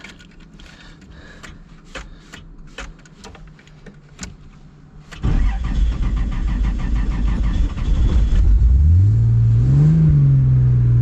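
Toyota 2JZ-GTE VVT-i straight-six being started on a weak battery. After some faint clicks the starter cranks for about three seconds, then the engine catches, revs up briefly and settles into a steady idle.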